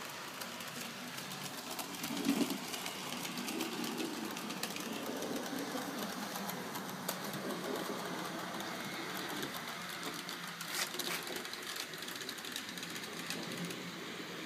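HO-scale model locomotive running along the track: the steady whir of its small electric motor and gears, with irregular light clicks of the wheels over rail joints.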